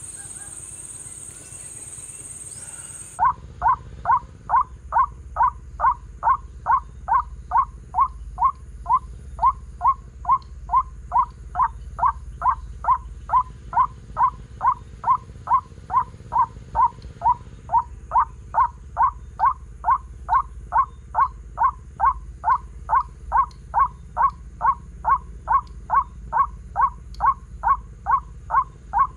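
White-breasted waterhen (ruak-ruak) call played through a homemade horn loudspeaker as a lure: one loud short note repeated very evenly, about twice a second, starting about three seconds in. Before it starts, crickets give a steady high buzz.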